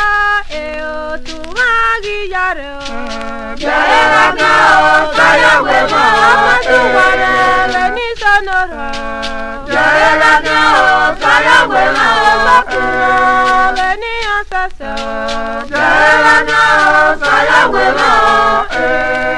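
Group of voices singing a chant-like song, fewer voices at first, then a fuller chorus from about three and a half seconds in, in phrases with short breaks.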